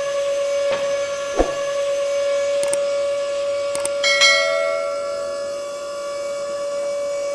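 Small DC motor of a toy drilling rig running with a steady whine. A second, slightly higher whine joins about four seconds in, along with a few light clicks and knocks.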